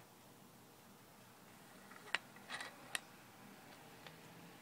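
Canon 80-200mm zoom lens having its zoom ring turned with the lens pointed down: faint mechanical rubbing with a few light clicks about two to three seconds in.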